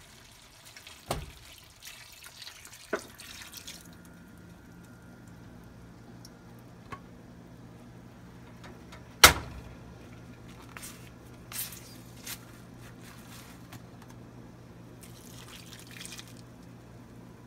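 Cooking liquid pouring and dribbling from a pressure cooker into a pan of chicken, with a few small clinks, followed by a low steady hum. A single sharp knock comes about nine seconds in, and a couple of lighter knocks follow. A thick paste is poured in near the end.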